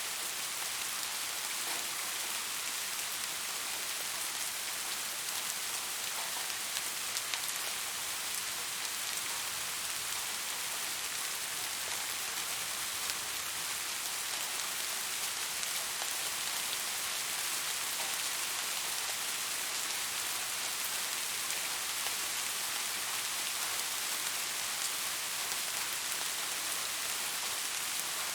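Steady rain falling: a continuous soft hiss with many small drops pattering on a surface.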